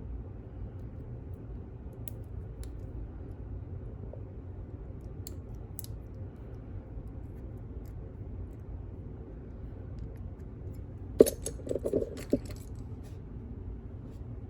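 Small metal lock parts clicking and clinking as a pin-in-pin lock is taken apart, with a few faint ticks early on and a quick cluster of clinks about eleven seconds in, the first the sharpest, over a steady low hum.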